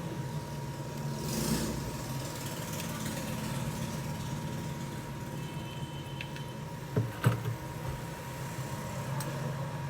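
Steady low hum with a thin constant high tone and hiss, like a running motor or fan; two sharp clicks in quick succession about seven seconds in.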